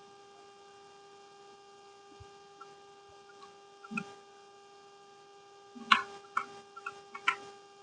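Steady electrical hum, with a few scattered clicks and a cluster of sharper, louder clicks and taps about six to seven seconds in.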